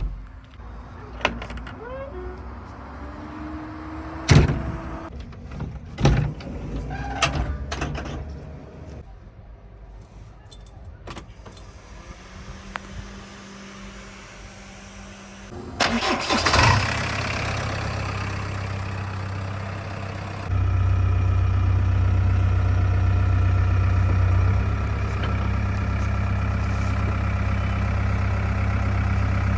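Scattered clicks and knocks, then about sixteen seconds in a diesel engine cranks and starts, settling into a steady low running hum that steps up louder a few seconds later.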